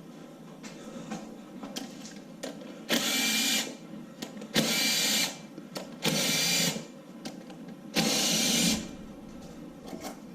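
A power tool spinning an 8 mm socket in four short bursts, each under a second, backing out the valve cover bolts on a 6.0 LQ4 LS V8.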